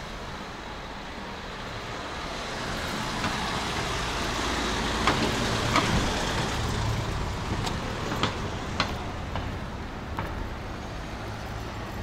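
Street traffic: a passing vehicle's engine and tyre noise swells over the first half and then fades, with a few light clicks on top.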